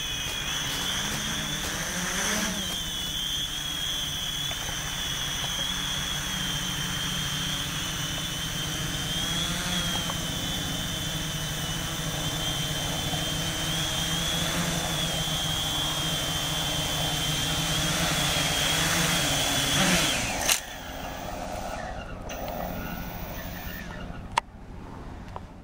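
WOV Y6 500 Y6 multicopter's six electric motors and propellers giving a high whine that wavers in pitch with throttle as it flies. About twenty seconds in the whine stops suddenly as the motors shut down on landing, leaving a faint hiss and one sharp click.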